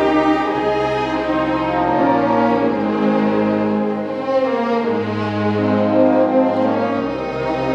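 A youth orchestra playing: violins and other bowed strings together with brass and saxophones, in held chords that change every second or so.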